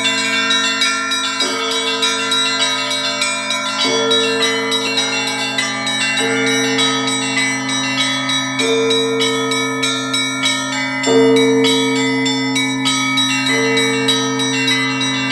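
Several bells pealing together: a deep bell struck about every two and a half seconds, its tone ringing on, under many quicker, higher strikes.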